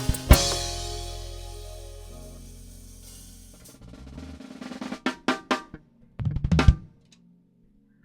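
Drum kit music: a final loud hit with a crash ringing out and a held low bass note fading over about three seconds, then a few scattered drum hits and a short burst of strokes near the end before it goes quiet.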